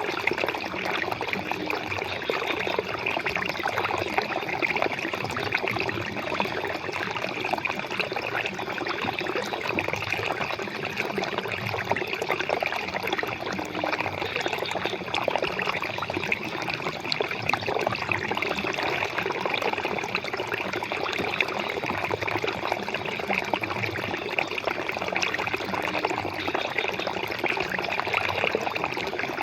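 Flowing water running steadily, a continuous trickling and splashing with a dense patter of small splashes.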